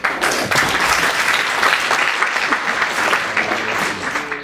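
Audience applauding: a burst of clapping that starts suddenly and tapers off near the end.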